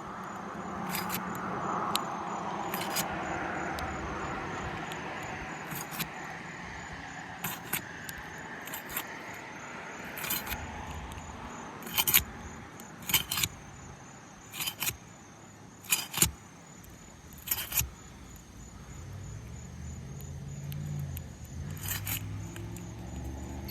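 Sharp clicks and taps of a metal tool working asphalt shingles loose, a dozen or so scattered through the middle of the stretch. Underneath, the noise of a passing vehicle swells and fades over the first several seconds, and a low rumble comes in near the end.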